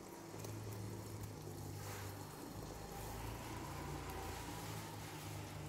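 Faint steady hiss over a low hum, the quiet background of a pan of eggs cooking on the stove.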